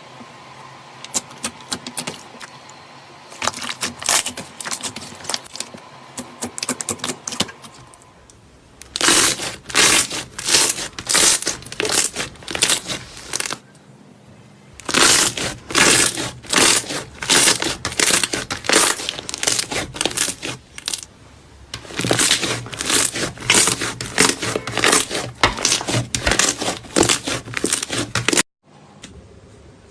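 Slime being squeezed and poked by hand, making repeated wet crackling pops about twice a second, in several stretches with short breaks between them.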